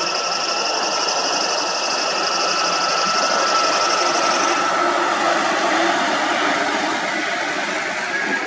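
Heavy Hyundai dump trucks driving slowly past on a dirt road, engines running with tyre and road noise. A steady high-pitched whine sits over it and fades out about halfway through.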